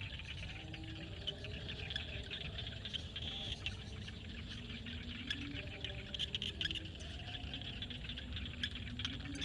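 Evening chorus of frogs and insects in a field: a dense mass of high, rapid chirping and trilling, with lower, wavering frog calls underneath.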